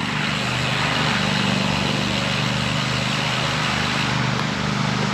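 Steady wind and rolling noise from a road bike in motion, an even hiss over a constant low hum.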